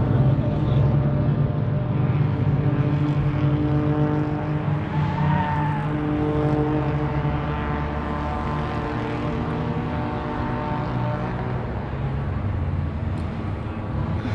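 Car engine running steadily under way, its pitch holding nearly constant throughout.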